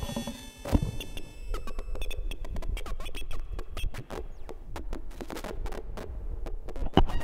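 Experimental electronic music from a modular synthesizer. A cluster of high steady tones fades out over the first second or two and gives way to dense, irregular crackling clicks, with one louder click near the end.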